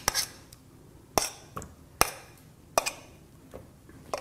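A metal spoon knocking and scraping against a small stainless steel bowl as soft quark is tapped out of it: about five sharp clinks, roughly a second apart.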